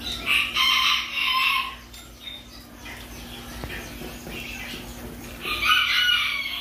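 Rooster crowing twice, one long crow near the start and another near the end.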